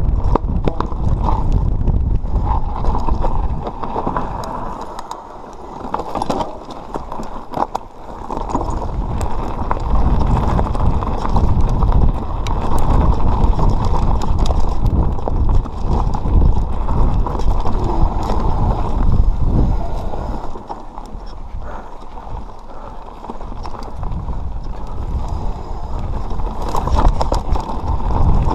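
Mountain bike descending a dirt singletrack: wind rushing over the action camera's microphone over the rattle of the bike and tyres on dirt, with frequent sharp knocks from the rough trail. It eases off twice as the bike slows, then picks up again.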